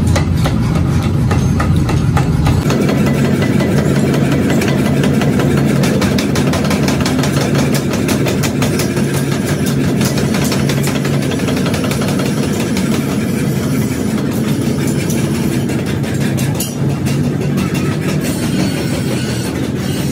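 Belt-driven mechanical power hammer and its motor running: a steady low drone under a fast, continuous metallic clatter.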